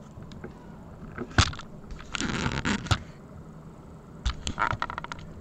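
Handling noise from a hand adjusting a webcam: a sharp knock about one and a half seconds in, then about a second of rustling and scraping that ends in another knock, then a quick cluster of clicks and knocks near the end.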